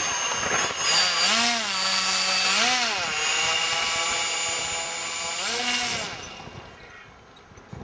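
Electric model airplane's brushless motor whining, its pitch swinging up and down a few times as the throttle is worked, then running down and fading out about six seconds in.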